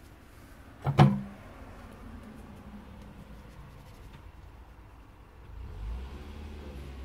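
A sharp knock about a second in, with a brief low ring after it; a low steady rumble comes in near the end.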